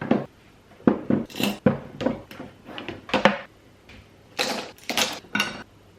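Kitchen knives being set one by one into a drawer knife organizer: a string of irregular clicks and clinks, busiest and loudest a little past the middle.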